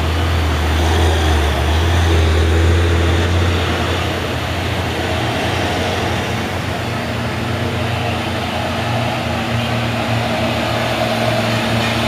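Heavy diesel trucks climbing a steep hill, their engines running with a loud, steady low drone. The engine note changes about halfway through.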